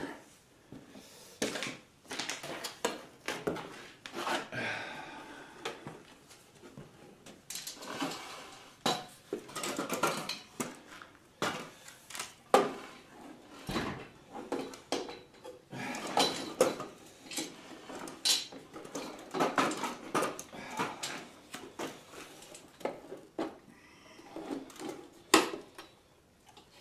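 Irregular metal clanks, knocks and rattles as a garage door opener's sheet-metal motor unit is handled and fitted onto the end of its steel rail, with rustling in between. One sharp knock near the end is the loudest.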